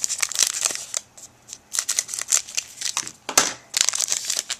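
A racing trading-card pack wrapper being crinkled and torn open by hand, in three bouts of crackly rustling.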